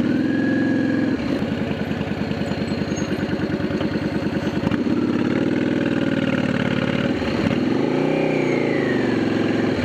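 Motorcycle engine running under way, its pitch rising and falling a few times as the bike speeds up and slows, with one clear rev up and back down near the end.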